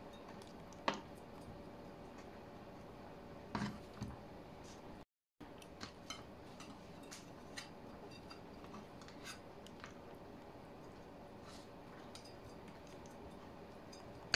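Kitchen knife and raw shell-on shrimp handled on a wooden cutting board while the shrimp are deveined: sparse small clicks and taps, with one sharper tick about a second in and a short cluster of knocks near four seconds, over a faint steady hum. The sound cuts out for a moment about five seconds in.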